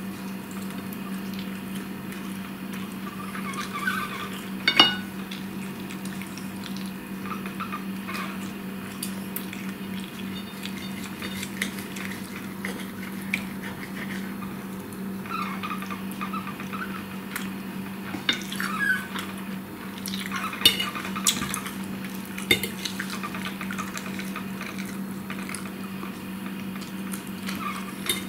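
Fork and knife clinking and scraping on a plate, with scattered sharp clinks and the wet sounds of chewing salad, over a steady low hum.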